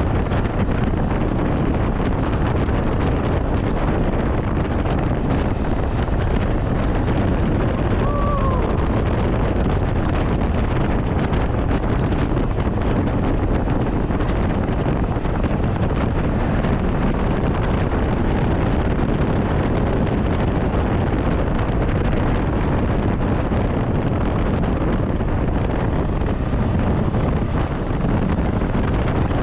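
Wind rushing over the camera microphone on a moving motorcycle, a Honda CB500X's parallel-twin engine running underneath the wind noise.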